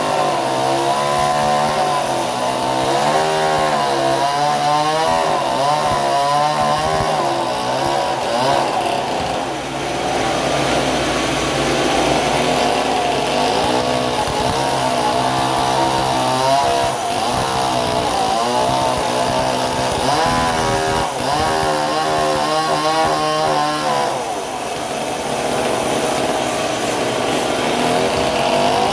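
Petrol-engine saw cutting timber, its engine pitch rising and falling continuously as the load changes.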